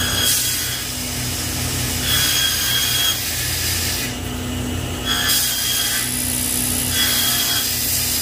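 Table saw running steadily while a wood panel is pushed through the blade in repeated cuts. The sharp noise of the blade cutting comes and goes about four times, with a lull about four seconds in.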